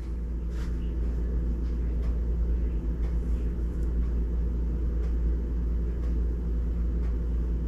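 A steady low hum, with a few faint light taps over it.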